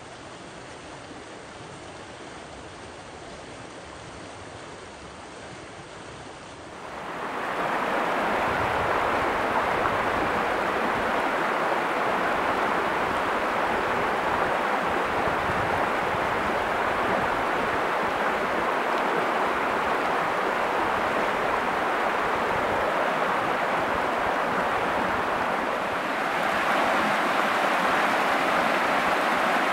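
River water rushing over rocks and small rapids, a steady noise. It becomes much louder about seven seconds in and steps up slightly again a few seconds before the end.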